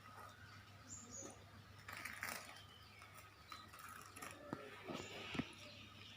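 Faint handling sounds of a jackfruit being pulled apart by hand, with two sharp clicks near the end. A bird chirps briefly about a second in.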